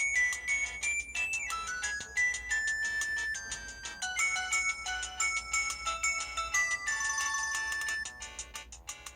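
Samsung SCH-W410 mobile phone ringtone: a bright electronic melody of quick chiming notes over a regular beat, fading out near the end.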